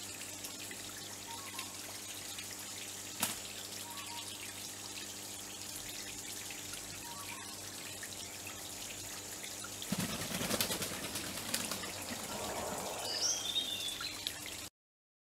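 A small rock waterfall trickling steadily into a garden pond, with faint bird chirps. About ten seconds in a louder burst of splashing starts as the white-headed pigeon bathes, followed by high chirping calls from other birds, and the sound cuts off suddenly near the end.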